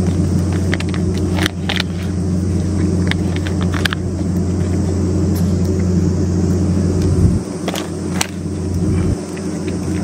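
A steady low mechanical hum, engine-like, carries through, with scattered sharp clicks and smacks of a cat eating wet food from a metal dish.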